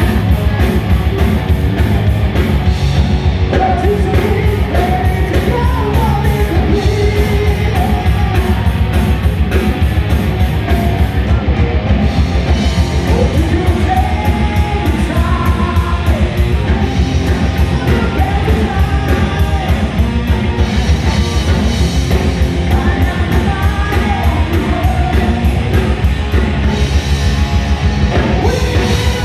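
Live heavy metal band playing at full volume: distorted electric guitars, bass guitar and a drum kit driving a steady beat, with a singer over it.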